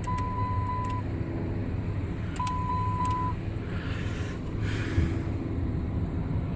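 Two even, one-second electronic beeps about a second and a half apart from the 2007 Saturn Vue's warning chime, over a steady low hum inside the car, with a few light clicks as the new turn signal switch is tried out.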